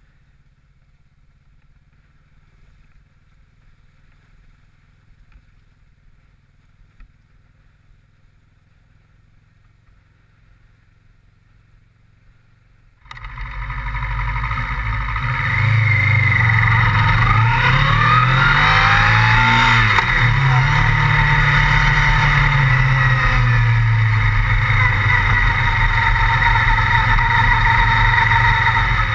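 Motorcycle engine on a Kawasaki Versys 650. It is faint for the first dozen seconds, then comes in suddenly and loud about thirteen seconds in, with the revs rising and falling before holding steady.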